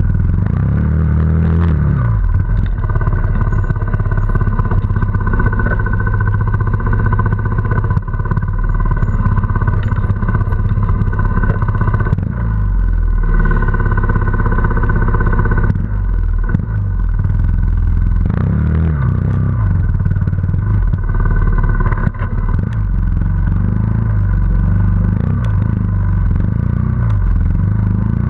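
Trials motorcycle engine running close by, revving up and down again and again as the bike climbs over rocky ground, with scattered knocks and clatter.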